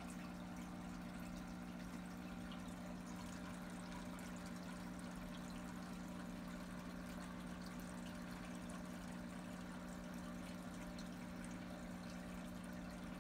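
Aquarium filter running: a steady trickle of water over a low, even hum.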